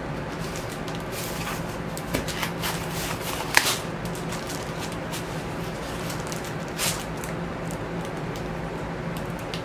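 A vinyl LP in a plastic outer sleeve being slid out of a cardboard mailer: scattered rustles, scrapes and crackles of cardboard and plastic, the sharpest about three and a half seconds in and again just before seven seconds. A steady low hum runs underneath.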